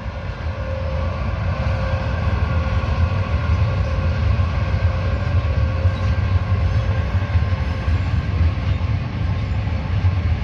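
Freight train of container and tank-container wagons rolling past, a steady heavy rumble of wheels on rail that builds over the first couple of seconds and then holds, with a faint steady whine above it.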